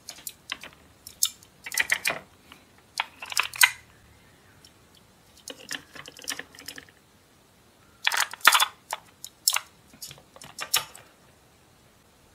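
Hard plastic toy food pieces and a plastic bento box clicking and clattering as they are handled and set in place, in three clusters of quick clicks with short quiet gaps between.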